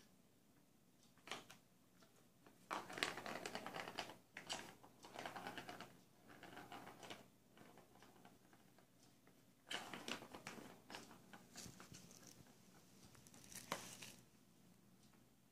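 Light-up ball rattling as it rolls around the plastic track of a Catit Senses Super Roller Circuit cat toy, batted along by a cat's paws, in several short bursts with pauses between.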